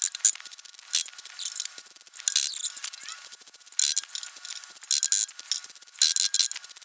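MIG welder striking short tack welds on thin 18-gauge sheet steel: about eight brief bursts of arc sizzle, each well under a second, with short gaps between as the trigger is pulsed.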